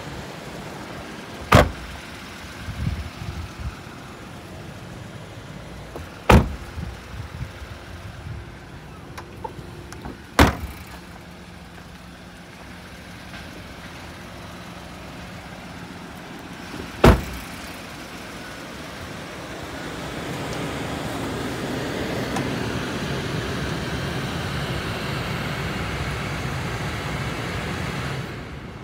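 Car doors of a Vauxhall Crossland shut four times, each a single sharp thud, with small clicks of handling after the first two. From about two-thirds of the way in, the climate-control fan blows a steady rush of air, cutting off suddenly near the end.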